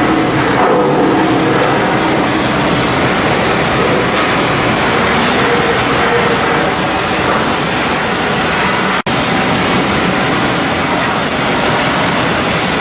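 Loud, steady machinery noise from shipyard work, with a momentary break about nine seconds in.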